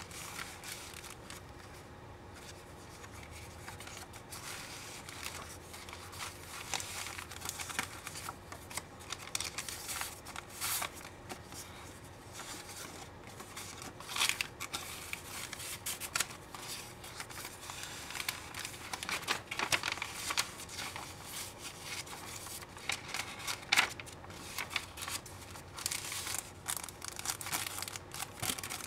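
Paper rustling as the pages of a handmade junk journal are turned by hand and its stiff paper tags, cards and envelopes are slid out and handled: irregular crisp rustles, a few louder than the rest.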